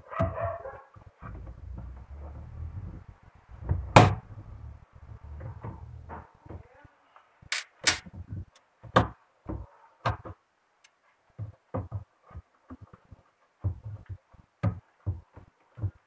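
Pliers snipping and picking at a small plastic fitting on a washing machine, breaking it off bit by bit. The result is irregular sharp clicks and knocks, many with a dull thump under them, the loudest about four seconds in. A low handling rumble runs through the first several seconds.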